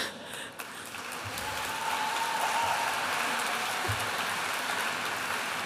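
Audience applauding, building up about a second in and then holding steady.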